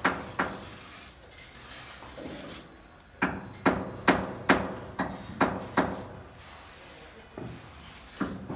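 Hammer blows, sharp and ringing briefly. A couple land right at the start, then a quick run of about eight strikes begins about three seconds in, and a few more follow near the end.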